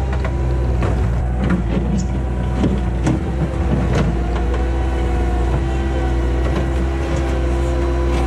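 Bobcat 864 track loader's diesel engine running steadily, with a steady whine above it and several sharp clanks or knocks during the first half.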